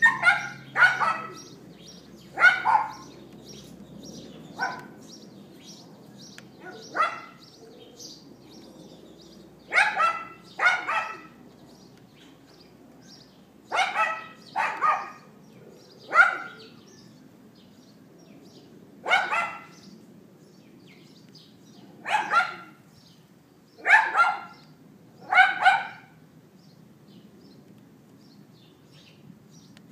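A small dog yapping: about fifteen sharp barks, singly or in quick twos and threes a few seconds apart, stopping a few seconds before the end.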